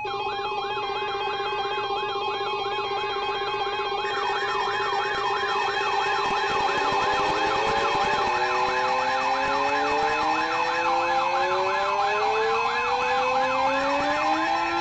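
Emergency Alert System attention signals from more than one receiver sounding at once: steady alarm tones held under a fast, regular siren-like warble. From about six and a half seconds in, several slowly rising siren wails join the mix.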